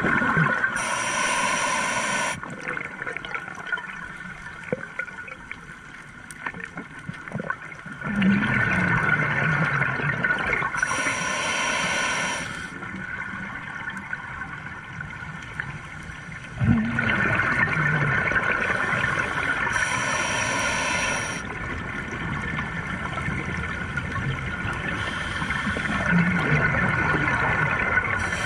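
Scuba regulator breathing underwater: a hiss on each inhale and a rush of bubbling exhaust on each exhale, slow breaths repeating about every nine seconds.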